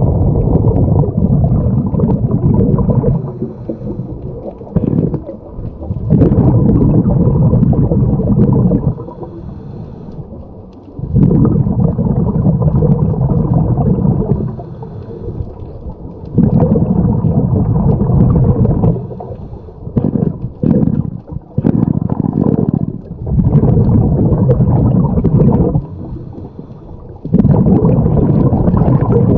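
Scuba diver's exhaled air bubbling out of the regulator underwater, in low rumbling bursts of about three seconds roughly every five seconds, with quieter gaps for each inhale between them.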